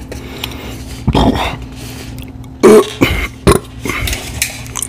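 A man clearing his throat and burping after a drink of carbonated Coke, with a few short sharp clicks or crunches after the burp.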